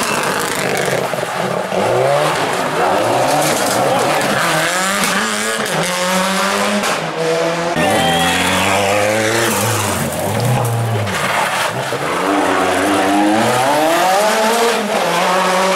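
Rally cars driven flat out through a tight hairpin: a Subaru Impreza WRX STI and then a Lancia Delta Integrale, their turbocharged four-cylinder engines revving up and dropping back repeatedly through quick gear changes.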